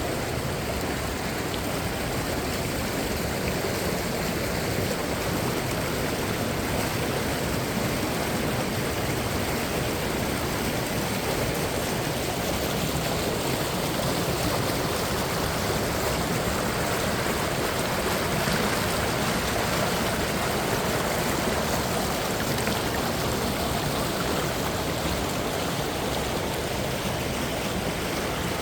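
Mountain valley stream water running steadily.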